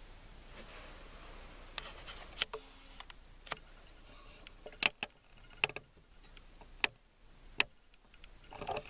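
Handling noise from a handheld camera being moved: scattered sharp clicks and taps, about eight in all, over a faint hiss.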